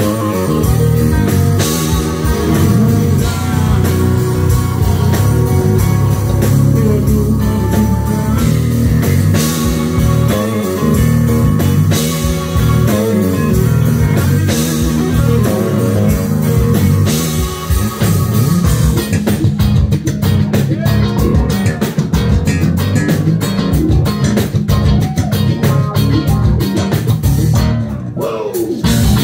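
Live blues-rock band playing loudly: electric guitar leading over bass guitar and drums. About nineteen seconds in, the playing turns into a fast, choppy rhythm.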